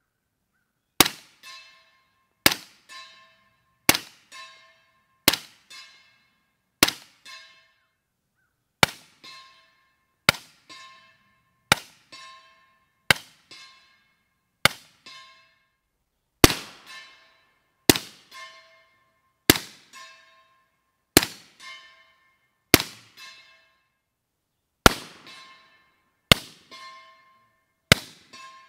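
Suppressed rifle fired in a steady string, about eighteen shots roughly one and a half seconds apart. Each shot is followed about half a second later by the ringing clang of the bullet striking a steel target.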